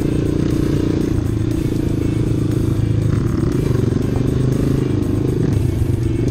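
Honda CRF 230 trail bike's single-cylinder four-stroke engine running at fairly steady revs, its pitch wavering slightly as the bike is ridden.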